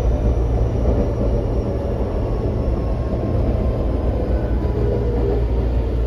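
Running noise inside a Tokyo Metro 05 series subway car: a steady rumble of wheels on rail, with a faint motor whine that falls in pitch in the second half as the train slows for the station.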